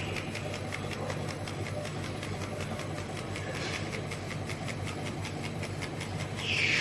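CO2 laser cutting machine running while cutting acrylic: a steady low hum with a fast, even ticking, and two short whooshes, one about halfway and one near the end.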